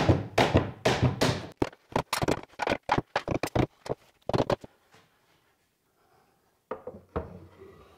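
A quick run of sharp wooden cracks and knocks as a taped-on wooden routing jig is popped off a segmented wooden ring. After a short pause, a few softer wooden knocks near the end as the ring is set down into the slotted shelf supports.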